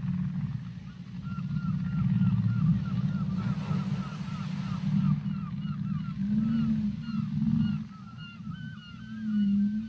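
Whale vocalizations under water: a low rumbling moan runs throughout, overlaid by a rapid series of short, squeaky rising-and-falling chirps, about three a second at first and more spaced out later.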